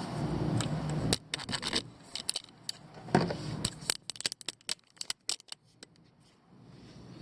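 A car engine running for about a second, then cutting off abruptly. Scattered sharp clicks and scrapes of hand work on metal parts follow. The engine sound fades back in near the end.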